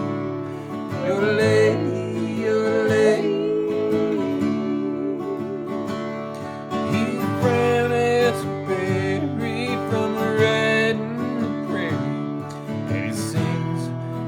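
Country music: acoustic guitar strumming under a wavering, bending lead melody line, with a brief dip about six seconds in.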